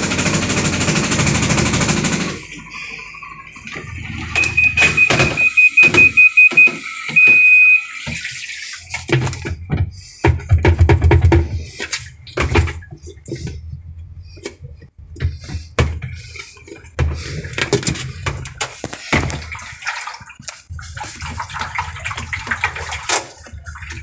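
Sharp automatic washing machine: the loud, even noise of its spin stops about two seconds in, then the control panel gives a quick string of short beeps and one longer beep. After that come scattered low knocks and rustling as the tub slows and is handled. The title puts the very noisy spin down to a defective tub assembly.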